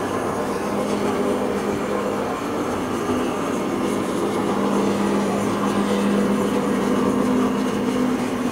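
Steam locomotive No. 207 turning slowly on a railway turntable: a steady mechanical hum in two tones that swell and fade, over a constant hiss.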